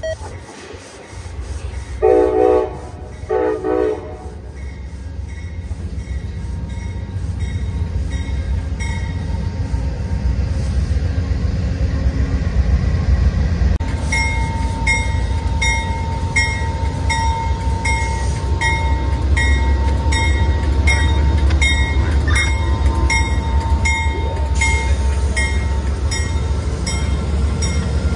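Amtrak GE P42DC Genesis diesel locomotives approaching: two short horn blasts a couple of seconds in, then the engines' low rumble grows louder as the train draws alongside. From about halfway, a bell rings steadily, about one and a half strikes a second.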